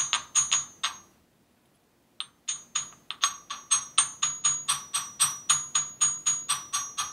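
Two small Yixing clay teapots, zhuni and hongni, struck quickly with their clay lids: rapid bright ringing clinks, about four or five a second, with a pause of about a second near the start. One pot rings a little higher in pitch, the sign of the denser zhuni clay.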